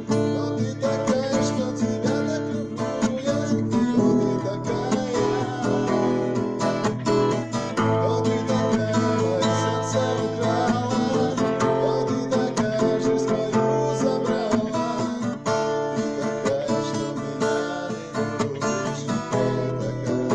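Acoustic guitar music: an instrumental passage of a song, plucked and strummed chords with a melody line over them.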